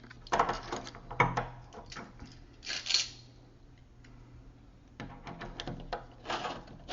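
Small metal clicks and knocks of a deadbolt's inside piece being handled and fitted over the pin that comes through the door, in two spells of tapping with a gap between.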